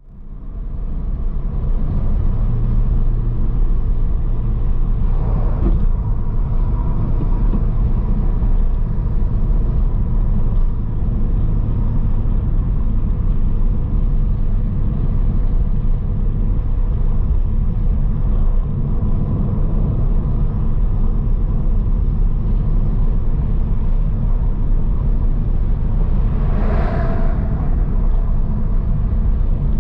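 Steady low road and engine rumble of a car driving along a paved road. It fades in at the start, with a brief swell of noise near the end.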